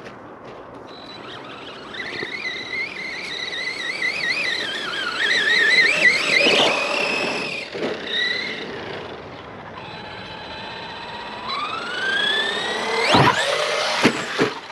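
Arrma Big Rock V3 RC monster truck's electric motor whining as it is driven, its pitch wavering up and down with the throttle. About 11.5 s in it winds up in a steeply rising whine, followed by a few sharp knocks near the end.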